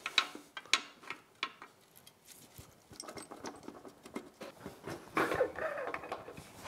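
Sharp metallic clicks and knocks, then scraping and shuffling, as the upper drive housing of a MerCruiser Bravo 2 sterndrive is worked loose from the lower unit and lifted off.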